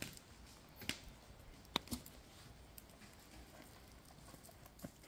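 A seasoning shaker bottle shaken over raw ground meat: a few light, scattered clicks and taps, with faint pattering of seasoning.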